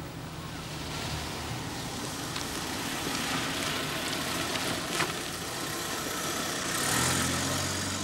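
Saloon car driving up and drawing in to the kerb, its engine running, growing louder over the first few seconds. There is a single sharp click about five seconds in.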